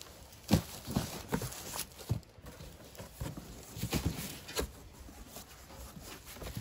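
Cardboard boxes being handled and the flaps of a large shipping carton pulled open, with a scatter of sharp knocks and scuffs.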